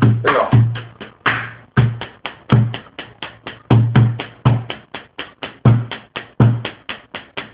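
Drumming on a living-room table with a stick and a lighter: a steady beat of sharp knocks and deeper thumps, about four strikes a second.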